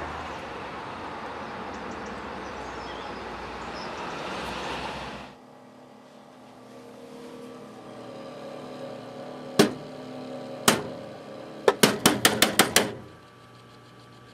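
A steady outdoor rushing noise cuts off suddenly about five seconds in. It gives way to the low, steady hum of a desktop computer's fans, with two sharp clicks and then a quick run of about seven clicks near the end.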